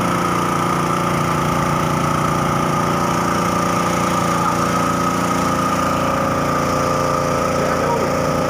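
Robin EY20 5 hp single-cylinder petrol engine running steadily at a constant speed, driving the belt-driven pump of a power sprayer.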